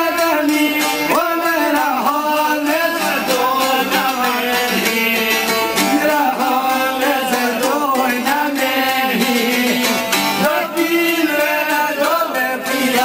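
Albanian folk song: a man's voice singing in a wavering, ornamented line over plucked long-necked lutes strummed without a break.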